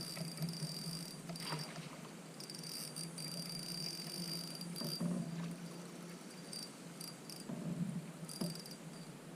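Crickets trilling in a thin, high, steady tone that stops and starts every second or so, over a faint outdoor hiss.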